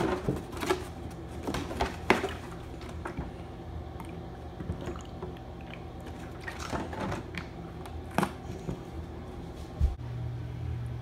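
Handling sounds of a plastic gallon jug of sweet tea and a plastic cup on a wooden table as the tea is poured into the cup: scattered light knocks and clicks, over a steady low hum.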